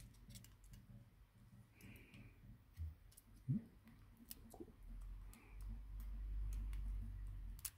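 Faint, irregular light clicks and taps of small electronic parts being handled, a smartphone mainboard and its camera module. A low rumble comes in about halfway through and is the loudest sound.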